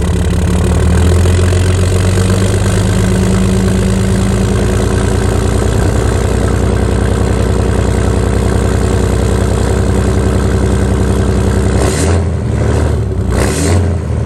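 6.7 Cummins inline-six turbodiesel with a 4-inch exhaust and resonator, idling steadily. Two short bursts of noise break in near the end.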